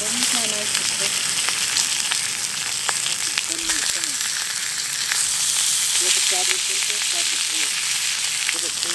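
Partly frozen steak searing on a hot cooking surface, sizzling steadily with scattered sharp pops.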